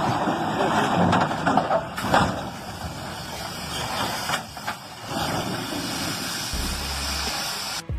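Heavy truck hauling a load of wood, engine running, with scattered knocks and clatter.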